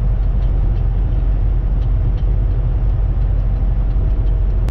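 Steady engine drone and road noise heard inside the cab of a Volvo semi-truck cruising on the highway.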